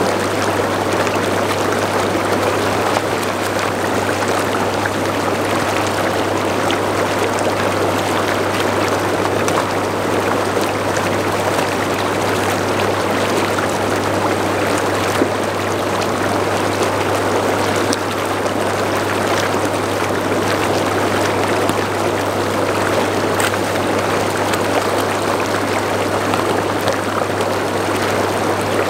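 Steady rushing noise like running water, unbroken, with a constant low hum underneath.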